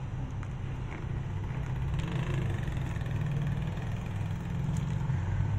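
A steady low mechanical hum from a motor or fan, with a few faint taps and scrapes of a plastic spatula stirring thick soup in a metal pot.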